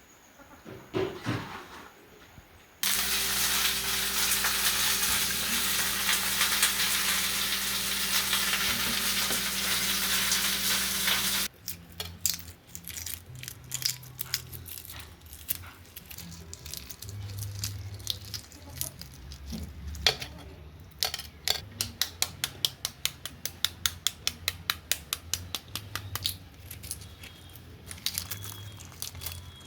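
Kitchen cooking sounds. For about nine seconds, a few seconds in, there is a loud steady sizzle like food frying in a hot pan. It cuts off suddenly and is followed by a long series of sharp clicks and knocks of utensils on pots and dishes, coming quickly one after another near the end.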